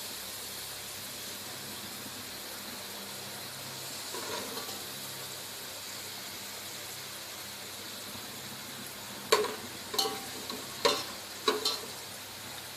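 Sliced onions sizzling steadily in hot oil and ghee in a steel pot, fried golden brown. Near the end a steel ladle clinks sharply against the pot and plate several times as the onions are scooped out.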